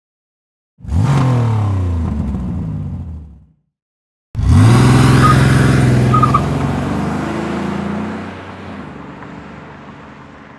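RC drift cars on asphalt under throttle: a motor note climbs and then slides down in pitch. After a short gap a second, louder run rises quickly and holds, then slowly fades away. Two brief high squeaks sit in the middle of it.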